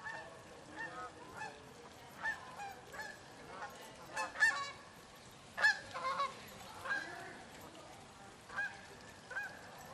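A flock of birds calling: many short calls repeated over and over, often overlapping. The loudest come about four and a half and five and a half seconds in.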